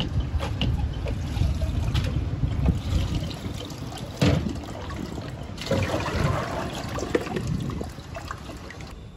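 Water trickling and splashing in a kitchen sink as washed water spinach drains in a plastic colander, with handling knocks and a sharp knock about four seconds in. It gets quieter near the end.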